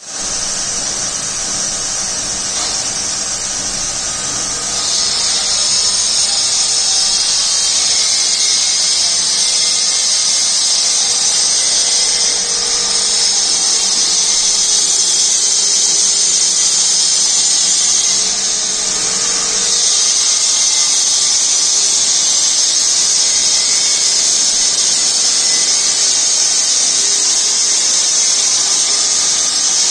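A steady, high-pitched whirring hiss like a small fast motor running. It gets a little louder about five seconds in and dips briefly twice later on.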